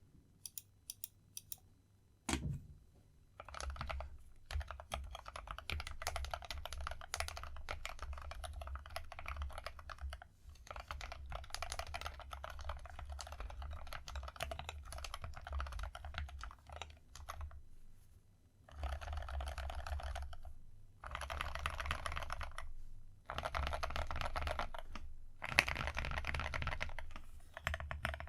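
Typing on a BMP 7sPro mechanical keyboard with Gateron North Pole Yellow linear switches and AKKO SAL-profile keycaps. A few single key presses and a knock open it, then fast continuous typing runs in bursts broken by brief pauses.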